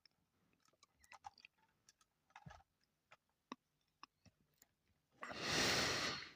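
Scattered light clicks and taps of plastic Lego pieces being handled. Near the end comes a louder rush of noise lasting about a second.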